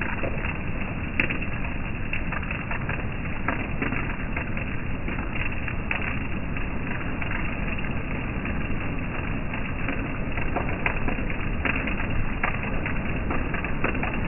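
Steady rain falling, a constant hiss dotted with many small irregular patter and drip ticks.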